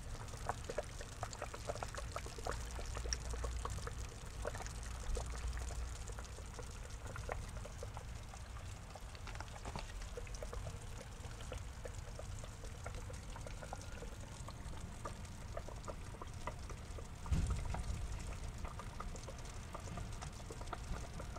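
Water pouring and trickling into a garden pond, with many small drips over a steady low rumble. A dull low bump sounds about three-quarters of the way through.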